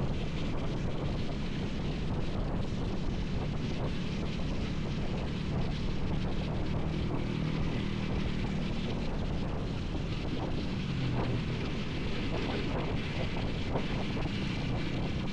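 Motorcycle riding at speed: steady wind rush buffeting the microphone over the engine's drone and road noise.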